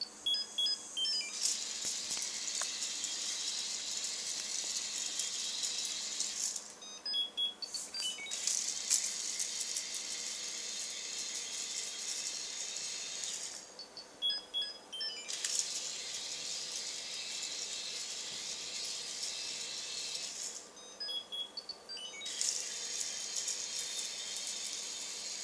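LEGO Droid Developer Kit R2-D2 driven by its Micro Scout motor: its plastic Technic gears and legs rattle as it walks across a wooden floor, in four runs of about five seconds each. The runs are separated by three short pauses holding brief electronic beeps.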